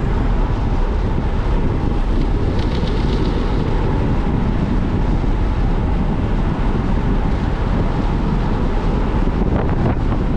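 Steady rush of wind buffeting the handlebar camera's microphone on a fast bicycle descent, with a few faint ticks near the end.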